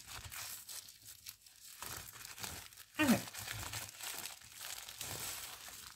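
Packaging crinkling and rustling as a diamond painting kit is unwrapped by hand.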